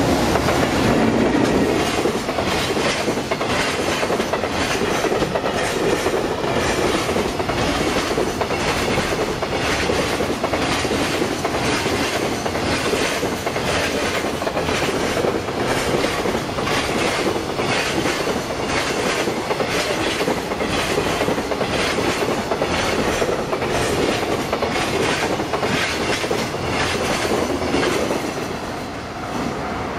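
JR Freight EF210 electric locomotive passing close by, followed by a long container freight train rolling past with an even clickety-clack of wagon wheels over the rail joints, about one to two beats a second. The sound is loudest as the locomotive passes in the first seconds and falls away near the end as the last wagon goes by.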